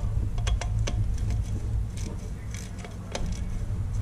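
Scattered light metallic clicks of a hand ratchet and socket snugging down the thermostat housing bolts, a few clicks at a time at uneven spacing, over a steady low hum.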